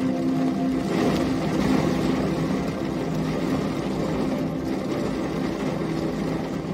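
Steady rain falling, with a low rumble underneath and faint sustained low tones; the rain swells a little about a second in.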